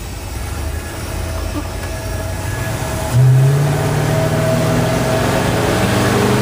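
Ford 460 big-block V8 pulling the truck under acceleration. About three seconds in, the engine note jumps louder as the throttle opens further, then holds a strong, slowly rising drone.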